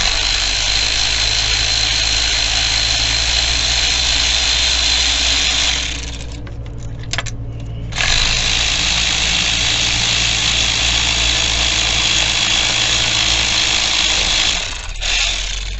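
A loud, steady mechanical whirr in two long runs, breaking off for about two seconds in the middle, over a low steady hum.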